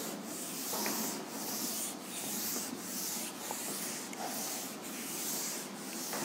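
Chalkboard duster rubbing across a chalkboard, erasing chalk writing in repeated back-and-forth strokes, about two a second.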